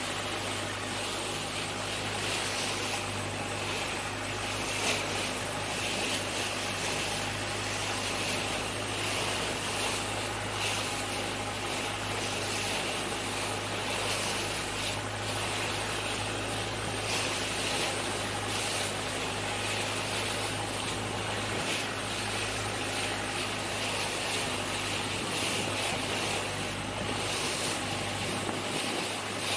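Longtail boat's engine running steadily underway, a low drone, under a constant rush of wind and water against the moving hull.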